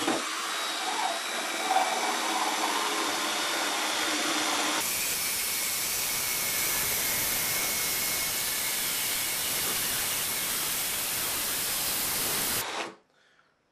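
Cordless drill running a quarter-inch drill saw bit that saws sideways through quarter-inch lauan plywood to cut out a circle. The noise is steady, turns suddenly brighter and hissier about five seconds in, and cuts off near the end.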